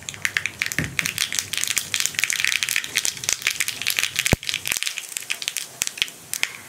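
Mustard seeds popping and spluttering in hot coconut oil in a small pan: a dense run of sharp crackles, with one louder crack about four seconds in, thinning out toward the end. This is the tempering (tadka) stage, the seeds bursting as the oil reaches frying heat.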